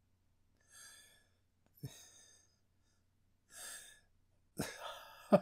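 A man's stifled laughter into his hand: short breathy puffs about a second apart, the last one longer and louder near the end.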